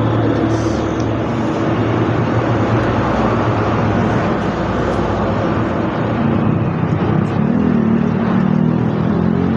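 Steady loud motor-vehicle engine noise, with a low hum throughout and a wavering engine tone that comes up from about seven seconds in.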